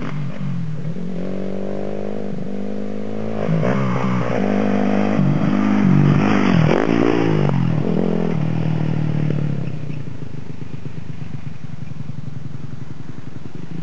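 Dirt bike engine revving up and down through the gears as the bike rides past, loudest about six seconds in, then settling to a steadier, quieter running note.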